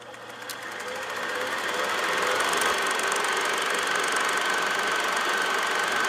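Reel-to-reel film projector switched on and running: a steady mechanical clatter that builds up over about two seconds, then holds steady with a faint whine.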